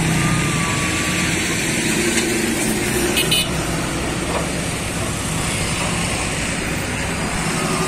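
Road traffic passing close by: motorcycle engines and a heavy dump truck's engine running steadily, with a brief horn toot about three seconds in.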